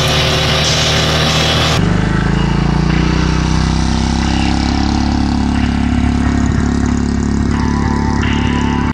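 Vehicle engine and road noise, then from about two seconds in, a small dirt bike's engine running steadily as it carries two riders past.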